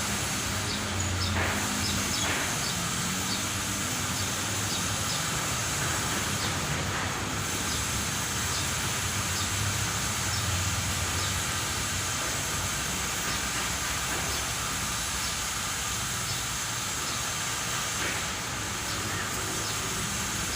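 Steady hiss of water spraying, as when a caged bird is bathed with a sprayer, with faint short ticks about once a second.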